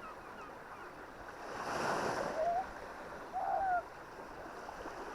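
Baltic Sea waves washing onto the shore, with one swell of surf about two seconds in. Two short honking bird calls come about two and a half and three and a half seconds in, the second the loudest, over faint higher chirps.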